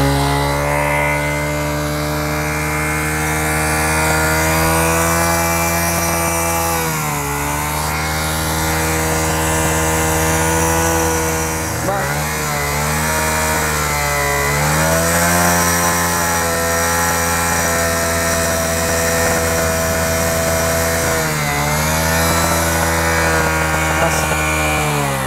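Honda CD 70 motorcycle's small single-cylinder four-stroke engine held at high revs, its exhaust inflating a giant balloon fitted over the silencer pipe. The engine note dips and climbs back three times as the throttle eases and reopens.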